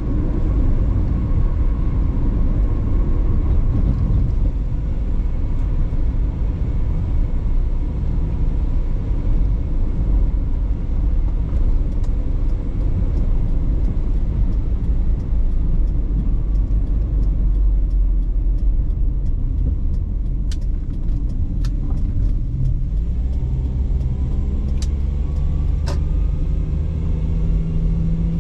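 Car driving on the road, heard from inside the cabin: a steady low rumble of engine and tyres, with the engine note rising near the end.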